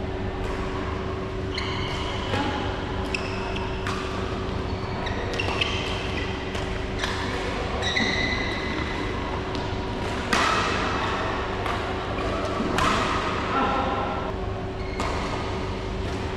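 Badminton rally: sharp racket strikes on the shuttlecock at an irregular pace, the hardest about ten seconds in, with short squeaks of shoes on the court floor in between. A steady hum runs underneath.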